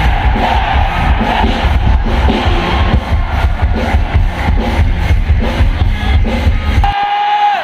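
Live rock band playing loud through the PA, with drums, bass and electric guitars. Near the end the drums and bass drop out for a moment, leaving one held note.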